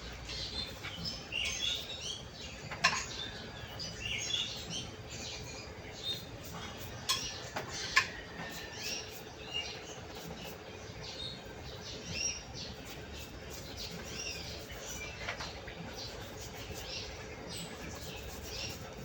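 Many short, high chirps like small birds calling throughout, with a few sharp metallic clinks, the loudest about 3 and 8 seconds in, over a faint steady hum.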